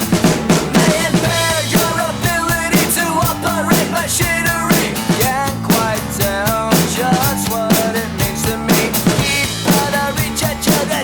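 Rock music with singing and a full drum-kit beat, played along with on a Roland TD-17KVX electronic drum kit.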